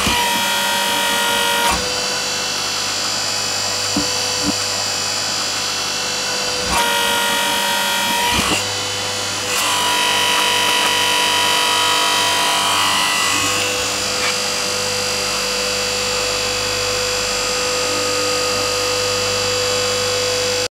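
Hydraulic press's electric motor and pump running with a steady hum and whine, its tones shifting a few times. There are a couple of faint clicks about four seconds in.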